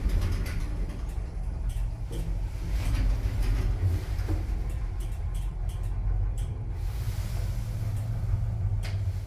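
MP GO! Evolution rope-traction lift car travelling downward: a steady low rumble of the ride, with a few faint clicks over it.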